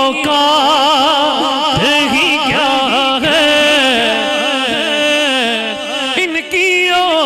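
A man singing a naat solo into a microphone, holding long, wavering, ornamented notes with only short breaks between them.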